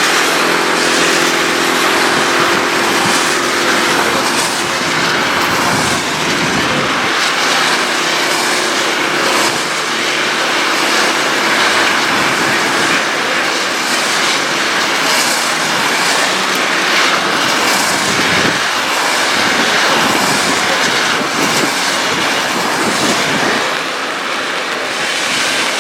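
Citroën C1 race car running on a wet track, its engine note clearest in the first several seconds and again briefly later, under a loud, steady hiss of rain, spray and tyre noise that swells and fades in waves.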